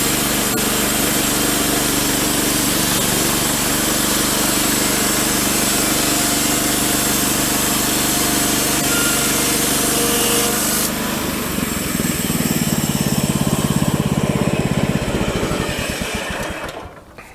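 Woodland Mills HM-126 portable bandsaw mill cutting cedar, its gas engine running under load with the blade hissing through the wood. About eleven seconds in, the cutting hiss stops and the engine note changes. It then dies away near the end.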